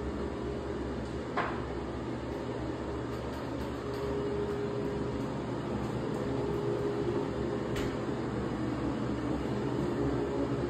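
Steady mechanical hum with a faint droning tone, and one sharp click about a second and a half in.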